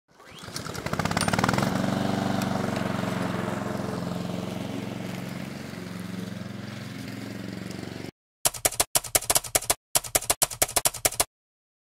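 A motor starts up, rising in pitch over the first two seconds, then runs steadily and slowly fades before cutting off about eight seconds in. Then come rapid typewriter key clacks in short runs for about three seconds.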